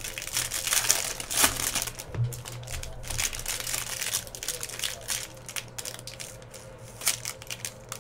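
Foil wrapper of a baseball card pack crinkling and tearing as it is ripped open by hand, in irregular crackles and rustles throughout.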